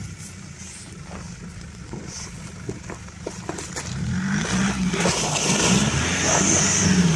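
Nissan Patrol Y61's ZD30 four-cylinder turbodiesel running at low speed, then revving up harder from about four seconds in as the lifted truck drives onto the frozen mud hole.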